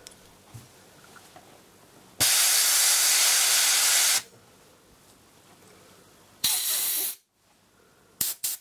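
Compressed-air blow gun blasting air onto the back plate of a LEGO pneumatic switch to blow off degreaser and old lubricant: a steady hiss of about two seconds, a shorter blast a couple of seconds later, and two quick puffs near the end.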